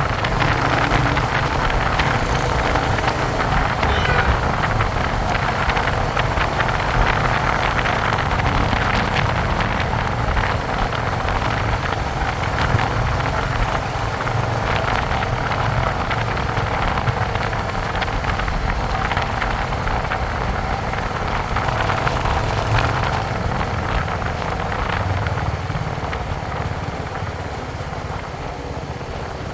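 Royal Enfield Hunter 350's single-cylinder engine and exhaust running steadily, growing slightly quieter near the end.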